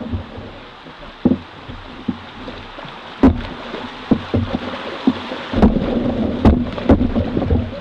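Canoe running a small river rapid: steady rushing water, with several sharp knocks. The water noise gets louder and heavier a little past halfway, as the bow runs through the white water.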